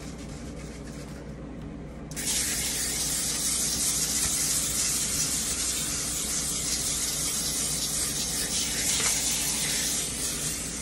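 Aerosol cooking spray hissing onto a baking pan in one long, steady spray that starts about two seconds in.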